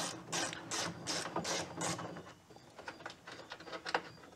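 Hand ratchet wrench clicking in quick strokes as 10 mm bolts on a VW Beetle door's window regulator are backed out. The strokes come about two to three a second, then turn fainter and sparser after about two seconds.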